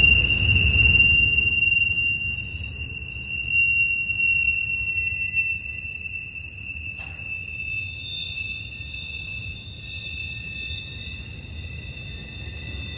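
Steel wheel flanges squealing against the rail as a double-stack intermodal freight train rounds a tight curve: several steady high-pitched squeals that shift and overlap. Beneath them is a low rumble of rolling cars that fades over the first few seconds, and there is a single sharp click about seven seconds in.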